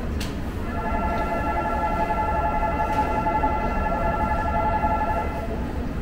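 Low rumble of a subway, with a steady ringing tone of several pitches that starts about a second in and stops near the end.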